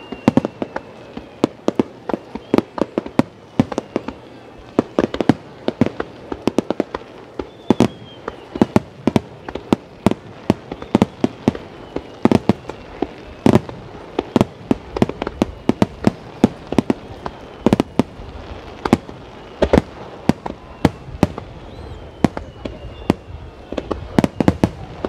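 Wide starmine fireworks display: a rapid, overlapping barrage of aerial shell bursts, several bangs a second, with a few faint falling whistles.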